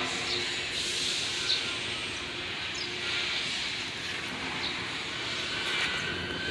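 Steady outdoor background noise, a broad hiss, with a few faint short high chirps.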